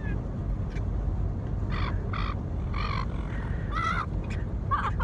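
A bird giving about five short, harsh calls, one after another from about two seconds in, over a steady low rumble.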